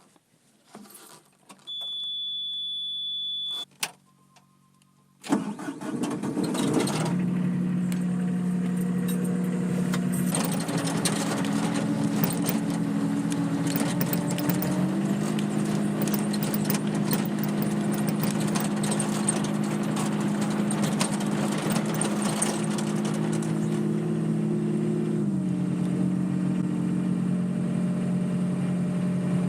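A skid steer loader's engine is started: a steady warning beep sounds for about two seconds as the key is turned on. About five seconds in the engine cranks, catches and settles into steady running. The engine speed steps up twice, and it drops back to a lower speed near the end.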